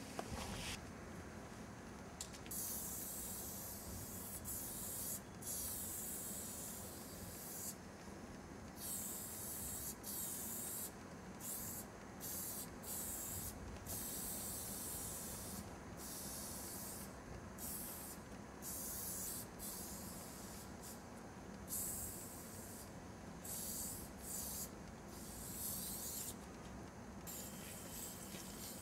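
Aerosol spray-paint can hissing in many short bursts, each a second or two long with brief pauses between, as paint is sprayed onto a wall.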